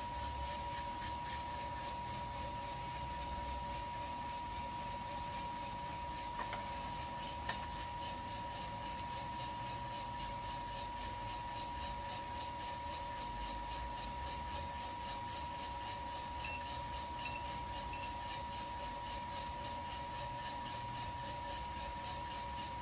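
Kaleido M10 Sniper Pro electric coffee roaster running mid-roast, its drum motor and exhaust fan giving a steady whine and hum as the beans go through the drying stage, just turning light yellow. Three short high beeps come in quick succession about two-thirds of the way through.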